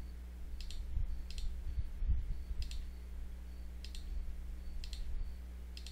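Computer mouse button clicking a handful of times, the clicks mostly coming in quick pairs, faint over a low steady electrical hum.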